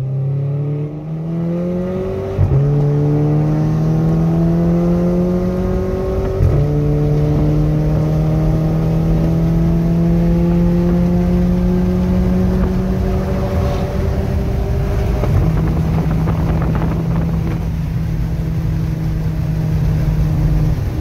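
Stage 2 tuned Volkswagen Golf Mk6 GTI's 2.0 TSI turbocharged four-cylinder pulling hard, heard from inside the cabin. The engine note climbs steadily in pitch and drops back at gear changes about two and a half and six and a half seconds in.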